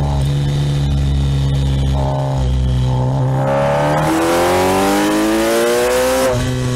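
Kawasaki Ninja 1000SX's inline-four engine heard from the rider's seat, running steadily, then accelerating with a rising pitch from about four seconds in before dropping suddenly near the end. Wind noise rushes underneath.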